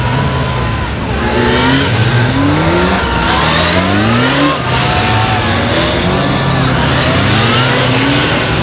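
Police motorcycle engine ridden hard through a tight course of corners, revving up again and again: the pitch climbs in short bursts of throttle, drops back, and climbs again.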